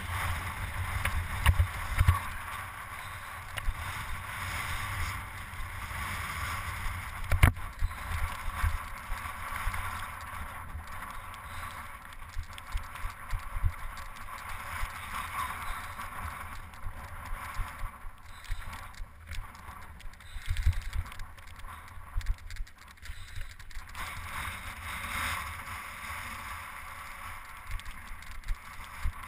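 Mountain bike ridden over a rocky gravel path: tyres crunching and bumping over stones, the bike knocking and rattling, with a few sharp knocks, the loudest about seven and a half seconds in.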